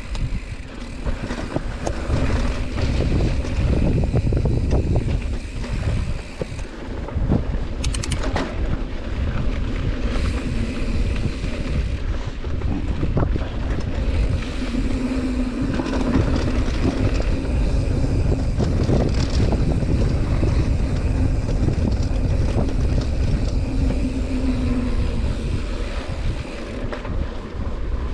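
Mountain bike rolling down a dirt singletrack, with wind buffeting the microphone and the bike rattling and knocking over rough ground. A steady hum joins for about ten seconds midway.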